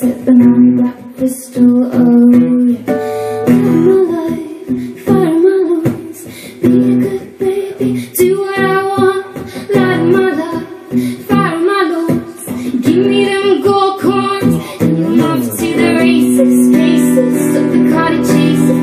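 A woman singing live, accompanied by a strummed acoustic guitar.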